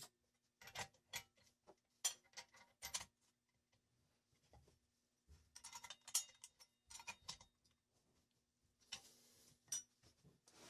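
Metal clinks and clicks as a 7¼-inch toothed circular saw blade is handled and fitted onto an angle grinder's spindle and its flange nut is screwed on by hand, in several short clusters, with a brief rustle near the end.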